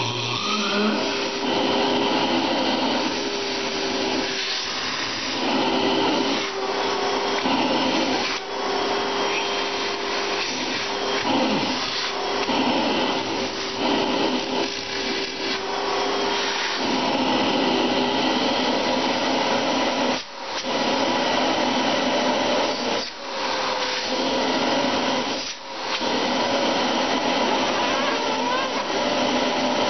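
Vacuum cleaner running continuously, its motor tone wavering slightly in pitch; the sound drops out briefly three times in the second half.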